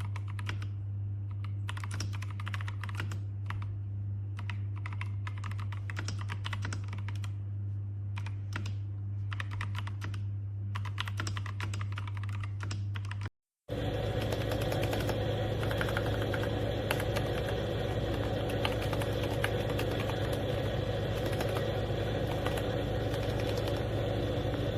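Typing on a mechanical keyboard fitted with PBT XDA-profile keycaps: an irregular run of keystroke clacks over a steady low hum. About halfway through it cuts to a louder take with more background noise.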